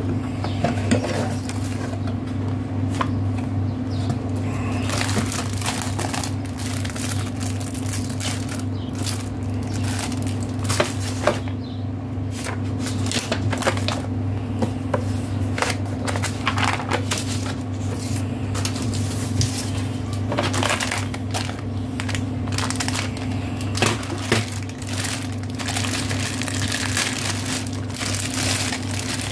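Paper manuals and a plastic bag rustling and crinkling as they are lifted out of a cardboard box and handled, in many short irregular scrapes and crackles. A steady low hum runs underneath.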